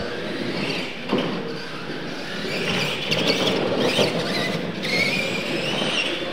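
Radio-controlled Clodbuster-based monster trucks racing on loose dirt: electric motors and gears whining over the scrabble of the tyres. The whine rises in pitch in the last second or so.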